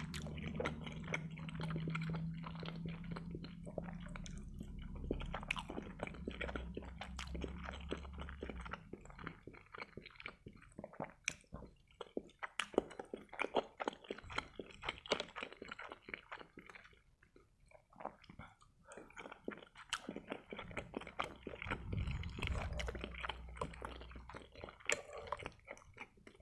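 Close-up chewing of soft boiled pelmeni dumplings coated in melted butter: a steady run of wet mouth clicks and smacks.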